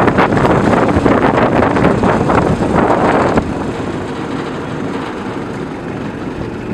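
Wind buffeting the microphone over the steady rumble of a moving vehicle. About three and a half seconds in, the wind noise drops away suddenly, leaving a quieter steady road rumble.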